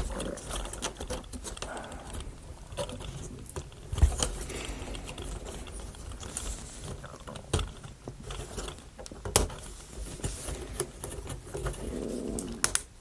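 Small laser-cut plywood model parts clicking and knocking as they are handled and fitted together, scattered sharp taps over a faint handling rustle, the loudest about four seconds in and again about nine seconds in.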